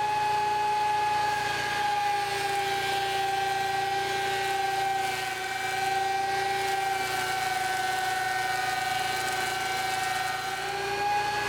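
Ridgid 13-inch thickness planer running with a steady high whine. The pitch sags slightly from about two seconds in, as the motor takes the load of a board passing through the cutterhead, and rises back near the end as the board clears.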